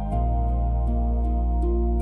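Celtic-inspired ambient new-age music: a sustained low drone under held tones, with a soft, regular tick about three times a second. A new, fuller bass chord comes in just after the start.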